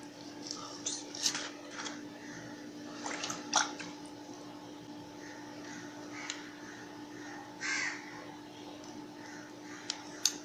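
Hands pulling and tearing the bulbs out of a split ripe jackfruit, with a few short sharp sounds over a steady low hum.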